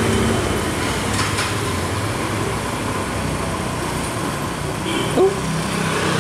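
Steady street traffic noise: a low engine hum under a wash of road noise, with a brief louder sound about five seconds in.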